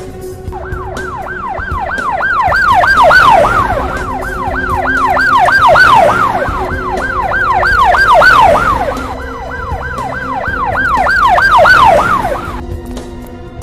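Emergency-vehicle siren in a fast yelp: each wail shoots up and falls back, about three a second. It swells and fades in loudness four times, then cuts off suddenly near the end.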